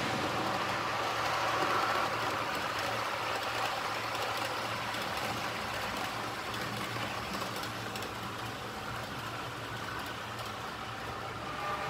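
H0-scale model train running along the track: a steady rumble of metal wheels on rails with a low motor hum. It is loudest about two seconds in and then slowly gets quieter.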